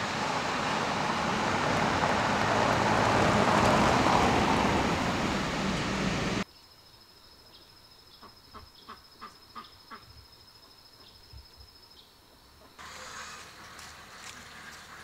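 A car driving past on a road, its engine and tyre noise swelling and then cutting off abruptly about six seconds in. Then much quieter outdoor sound with a steady high thin tone and a quick run of short sharp calls.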